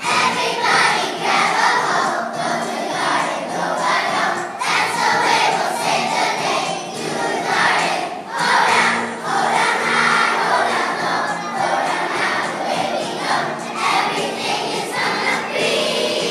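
A large group of young children singing a song together in unison over musical accompaniment, starting suddenly at full volume.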